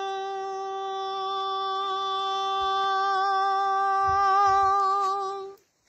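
A singer holding one long, unwavering note of a Gojri baith folk song, with a slight waver near the end before the voice cuts off suddenly about five and a half seconds in.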